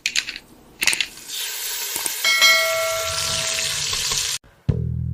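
A couple of short knocks, then a metallic clang that rings on for about a second and a half over a steady hiss that stops abruptly. Music with a bass guitar begins near the end.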